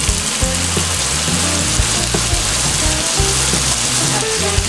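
Diced onion and bacon sizzling steadily in hot fat in an enamelled cast-iron pot, with a nylon spatula stirring them through the pan.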